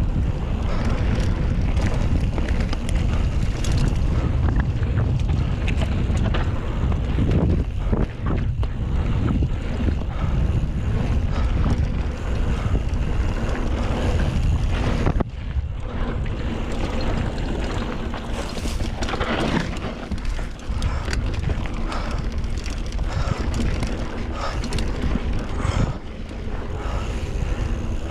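Wind buffeting the action camera's microphone while a mountain bike rides fast over dirt singletrack, with steady tyre rumble and scattered rattles and knocks from the bike over the bumpy trail.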